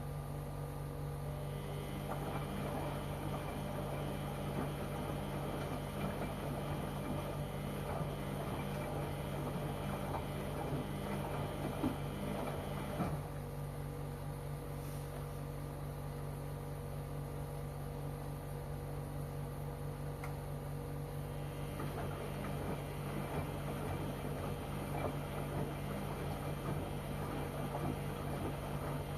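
LG washing machine in its wash cycle: the motor whines and the laundry and water churn for about eleven seconds, then the motion stops for about eight seconds and starts again near the end. A steady machine hum runs underneath throughout.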